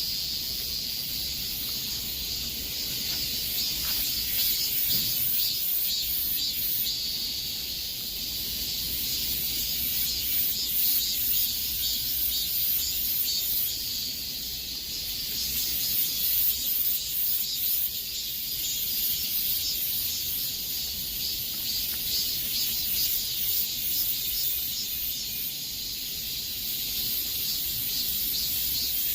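Chorus of cicadas buzzing: a continuous high, rapidly pulsing drone that swells and eases slightly in loudness.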